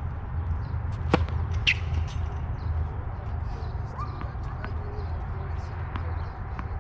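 A tennis ball is bounced on a hard court before a serve, giving sharp taps that are loudest about a second in. Brief bird chirps and a steady low rumble are also heard.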